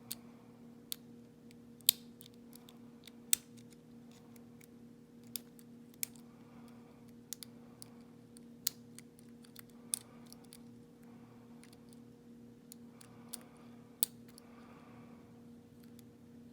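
Lock pick working the pins inside a pin-tumbler lock cylinder: sharp, irregular metallic clicks, one every second or so, over a steady low hum.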